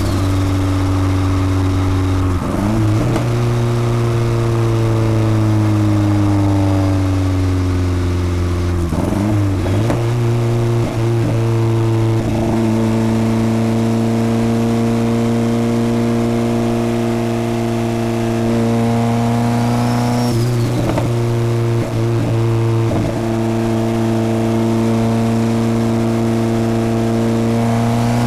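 Turbocharged Honda Civic D16 four-cylinder engine running under way, its note mostly steady and sagging slowly in places. It is broken by short throttle lifts or gear changes about 2 seconds in, around 9 to 12 seconds and again around 20 to 23 seconds, each with a brief fluttering chatter typical of turbo flutter. A faint turbo whistle rises and falls about 20 seconds in.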